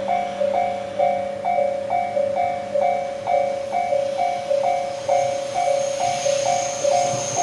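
Japanese railway level-crossing warning bell ringing, its two-tone electronic clang repeating about twice a second. From about five seconds in, a high hiss and a low rumble build as an electric train on the JR Minobu Line approaches.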